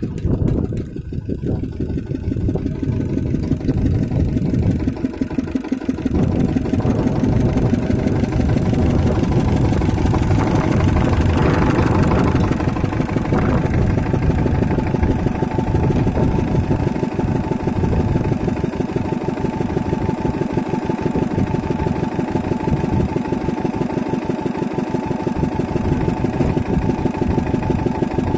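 Small stationary diesel engine running steadily, driving the belt-and-pulley drive of a well-drilling rig. It grows louder over the first few seconds, then holds an even, rapid beat.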